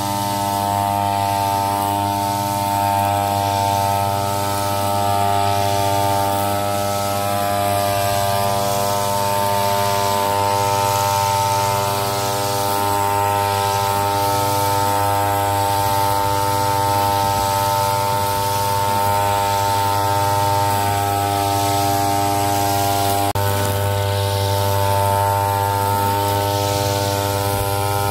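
Backpack brush cutter's petrol engine running steadily at one even pitch while its head cuts grass; the tone shifts slightly about 23 seconds in.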